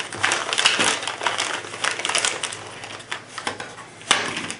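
Clear plastic zip-lock bag crinkling and rustling as it is pulled open and handled, with irregular crackles that are busiest at first and thin out. A single sharper click comes about four seconds in.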